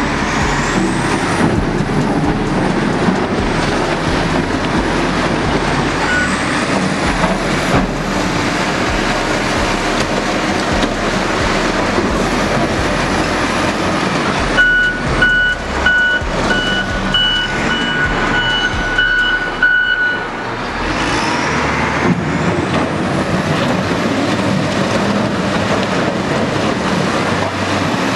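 Wheel loader's diesel engine running steadily under load as it works through demolition rubble, with a whine that rises and falls. About halfway through, its high reversing alarm sounds for about five seconds, and a few knocks come at the same time.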